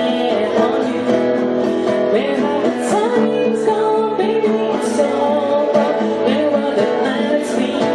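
Music: strummed acoustic guitar with a voice singing a gliding melody.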